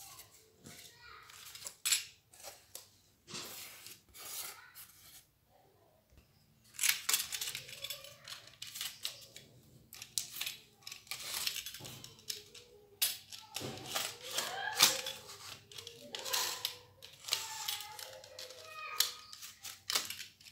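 Utility knife cutting through cardboard around paper templates: repeated short scraping strokes of the blade, with cardboard and paper rustling as the sheet is handled.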